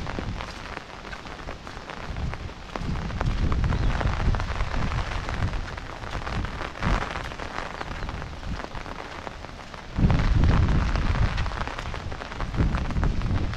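Rain falling steadily, a continuous hiss, under low rumbles that swell and fade, the strongest starting suddenly about ten seconds in.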